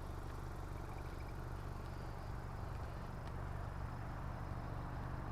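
Steady low hum of an idling car engine, with a faint hiss of outdoor background over it.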